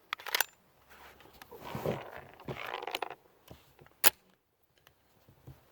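A firearm being readied by hand: metallic clicks and rattling as a loaded magazine goes in and the action is handled, ending in one sharp metallic snap about four seconds in, as the action closes.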